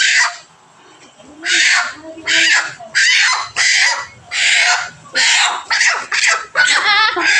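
A chicken squawking in distress as it is held down by hand for butchering: about ten loud, harsh cries in quick succession, the last one drawn out a little longer.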